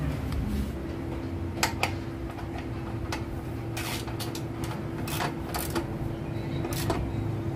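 Ratchet wrench clicking in short, irregular strokes, often in pairs, as it tightens an oil drain plug. A steady low hum runs underneath from about a second in.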